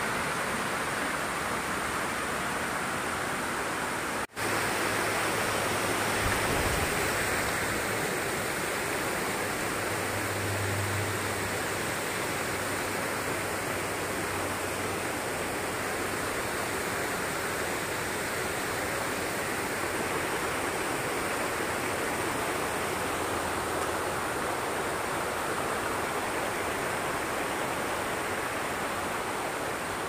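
Steady rush of a small waterfall pouring over rock slabs into a pool, with a momentary gap in the sound about four seconds in.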